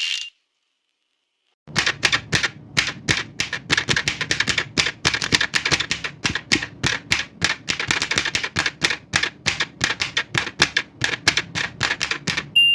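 Keys of an old manual typewriter striking in a fast, steady run at about five a second, after a short pause. The carriage's end-of-line bell dings briefly at the start and again right at the end.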